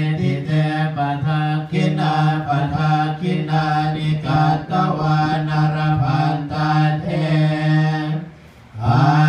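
Buddhist Pali chant recited on a steady low monotone, with syllables in a continuous even flow and a brief pause near the end.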